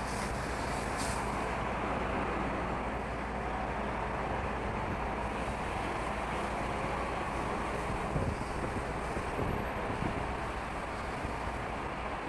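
Steady highway traffic noise from passing cars and trucks, with wind buffeting the microphone.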